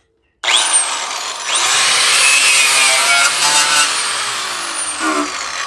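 Angle grinder with a knotted wire wheel starting up about half a second in and scrubbing surface rust off the Jeep's sheet-metal battery-tray floor, a loud grating whir, easing off and fading near the end.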